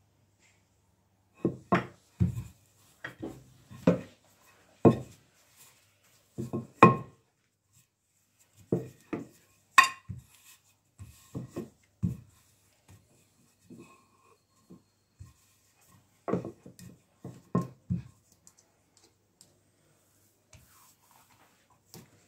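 Wooden rolling pin rolling out pastry dough on a granite countertop: a string of short knocks and rubbing strokes, roughly one a second, as the pin is pushed and set down. The strokes stop a few seconds before the end.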